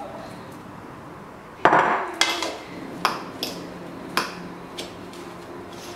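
A fork knocking and scraping against a mixing bowl while salad is tossed: about six or seven separate clatters, the loudest a little under two seconds in.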